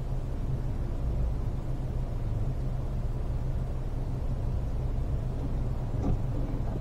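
Fiat Panda 4x4's two-cylinder TwinAir turbo engine idling steadily, heard from inside the cabin while the car stands in traffic. A single short click comes near the end.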